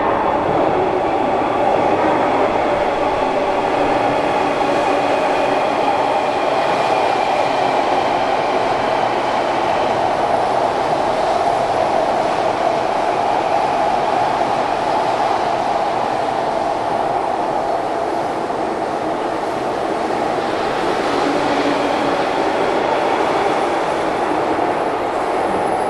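Odakyu 3000-series electric commuter train running through an underground station: a steady, loud rumble of wheels and running gear echoing off the concrete, with a faint high tone in the first half that fades out.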